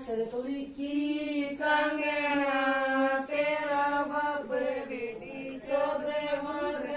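A voice singing slow, long-held notes that glide slightly between pitches, with short breaks between phrases.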